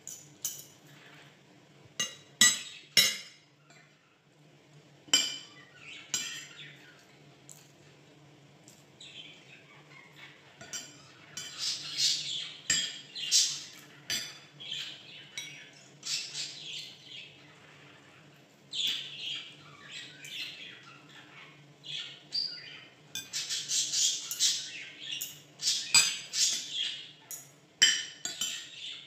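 Caged pet bird chirping and squawking in runs of quick high calls, with metal spoon and fork clinking against the bowls. The loudest clinks come a few seconds in.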